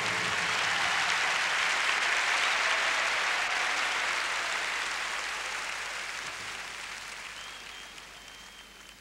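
Audience applauding, with the clapping fading away over the last few seconds.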